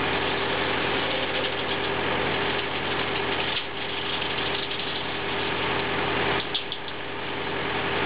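Tractor-driven circular sawbench running: the tractor engine powers the saw blade, making a steady tone over dense mechanical noise. The level dips briefly about halfway through and again near the end.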